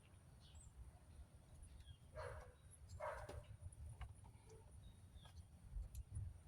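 Near silence over a low hum, with two faint short barks from a dog about two and three seconds in.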